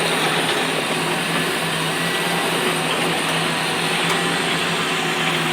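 A motor vehicle's engine running steadily with a constant low hum.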